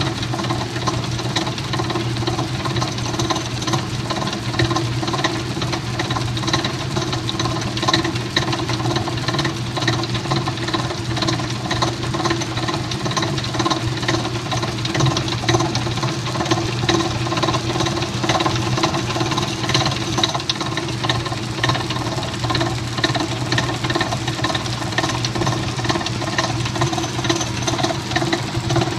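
Amana top-load washing machine agitating, its motor humming steadily under a rapid, repeated clunking from the agitator, a fault noise.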